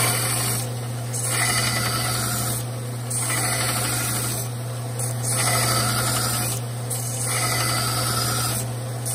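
Belt sander running with a steady motor hum while a metal bar is pressed against the belt to grind a radius on its end, a rasping grind swelling about every one and a half to two seconds, about five passes.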